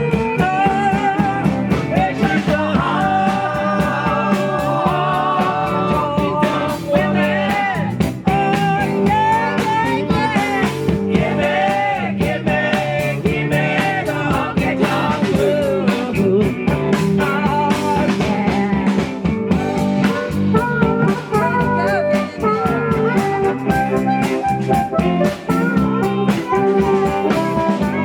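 Instrumental break of a country-rock band: guitar and rhythm section keep a steady beat under a lead line of bending, wavering notes.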